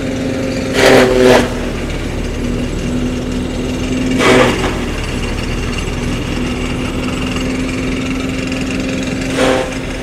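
Tractor-driven chaff cutter running steadily, chopping green maize stalks into silage, with the tractor engine humming under it. The din swells briefly three times: about a second in, around four seconds, and near the end.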